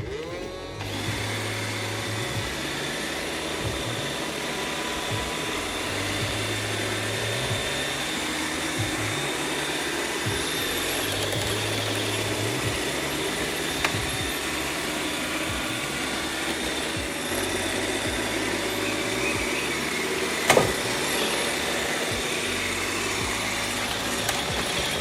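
iRobot Roomba 690 robot vacuum running: its motors spin up with a rising whine, then run with a steady, quite loud whir and a faint high whine. There is a sharp knock about twenty seconds in.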